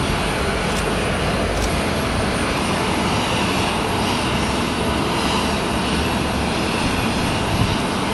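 Jet aircraft engines running, a steady even rush of engine noise that neither rises nor falls.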